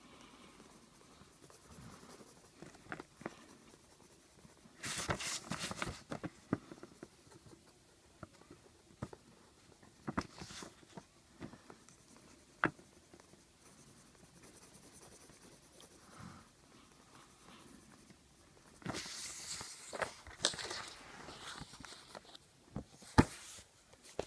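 Coloring strokes scratching on paper. The scratching comes in short scattered bursts, with two longer spells of rapid shading, about five seconds in and again near the end, and faint taps between them. A sharp knock near the end comes from the recording phone being handled.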